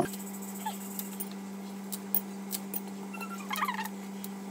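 Faint rustling of green garlic leaves and light clicks against glass jars as the leaves are folded and pushed in, with a small cluster of sounds about three and a half seconds in. A steady low hum runs beneath it.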